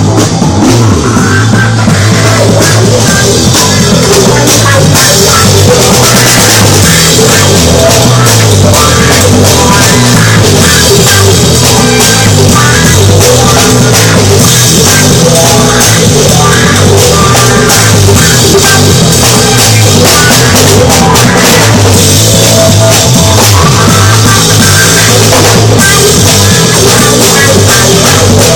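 Loud rock music with a drum kit and heavy, pulsing bass, played at high volume.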